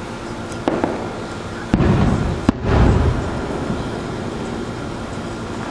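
Fireworks going off: two small pops, then two loud booms about a second apart a couple of seconds in, the second one fading out, over a steady low hum.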